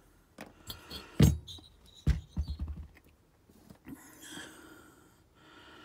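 A few sharp clicks and knocks of small engine parts being handled during assembly, the loudest about a second in, then a quick run of light taps around two seconds in, and a brief soft hiss near four seconds.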